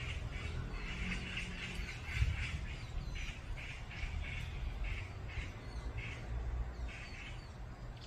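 Forest birds calling: one bird gives a quick run of short repeated calls that grows sparser toward the end, with thin higher chirps from other birds and a low rumble underneath.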